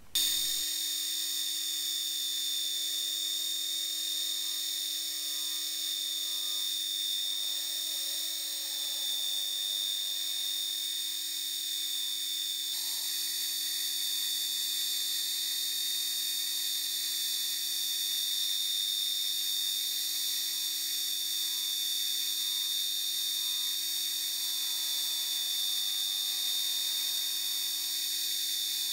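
Milling machine spindle drilling small holes in a metal part, a steady high-pitched machine whine with a small change in pitch about halfway through.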